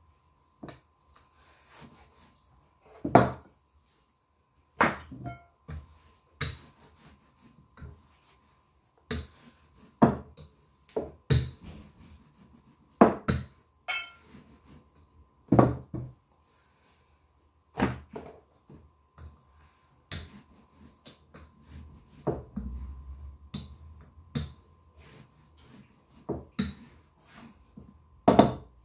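Wooden rolling pin rolling out pizza dough on a countertop: irregular knocks and thuds, one every second or two, as the pin bumps and presses on the counter, with a soft rolling rumble in between.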